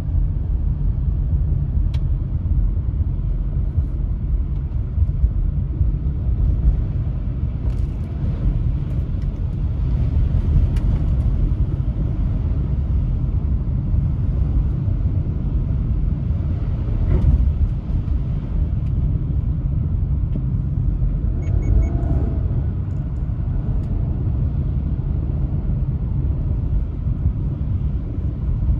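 Road noise heard from inside a moving car: the tyres on wet pavement and the engine make a steady low rumble.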